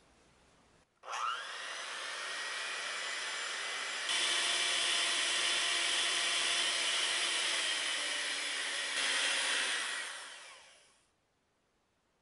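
Electric mixer whipping cream with sugar in a glass measuring cup. The motor starts about a second in with a rising whine, steps up to a higher speed about four seconds in, then winds down and stops near the end, once the cream holds stiff peaks.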